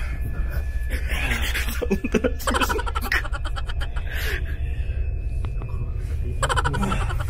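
A woman's voice in several short, broken-up phrases over a steady low hum.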